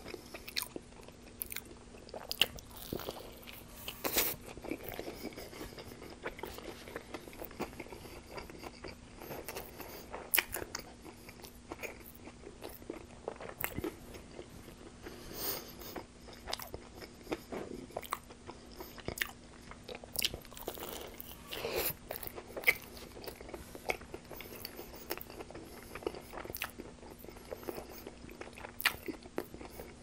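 Close-miked chewing and biting of a fried-chicken tortilla wrap (a homemade KFC Twister): irregular sharp, wet mouth clicks and smacks, several a second at times, with louder bites now and then.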